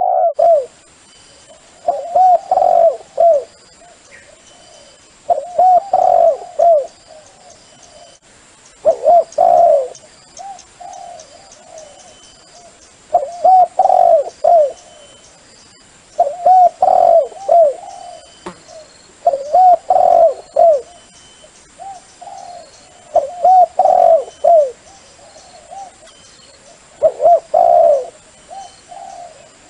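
Spotted dove cooing: phrases of a few low, curving coos, repeated about every three to four seconds.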